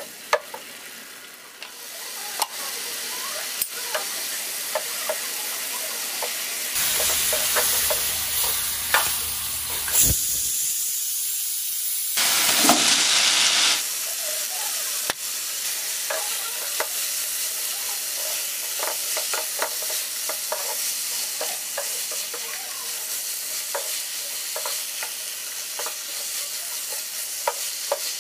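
Onion-tomato masala frying in a nonstick pan: a steady sizzle with the scrape and tap of a spatula stirring. Partway through, the sizzle grows louder for several seconds as small fish and potato sticks go into the hot pan.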